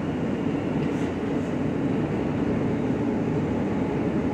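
R160 subway car running through a tunnel, heard from inside the car: a steady rumble of wheels on rail.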